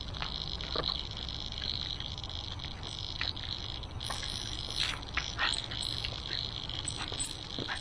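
Irregular crunching footsteps on gravel over a steady, high-pitched chirring chorus, with a low rumble underneath.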